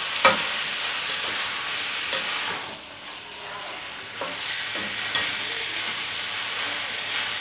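Beef strips and sliced onions sizzling in a granite-coated non-stick frying pan while a spatula stirs them, with a few short scrapes and knocks of the spatula against the pan. The sizzle drops briefly about three seconds in, then picks up again.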